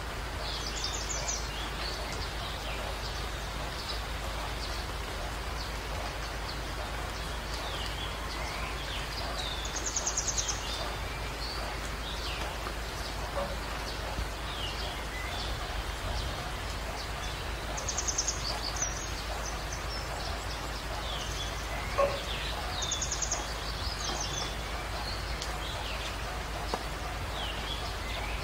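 Small birds chirping now and then, with a few quick buzzy trills, over a steady background hiss; one sharp click about three-quarters of the way through.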